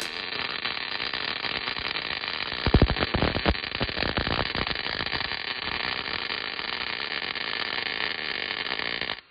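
MIG welder's arc crackling steadily as a bead is laid on a steel truck cab mount, with a few low knocks about three seconds in.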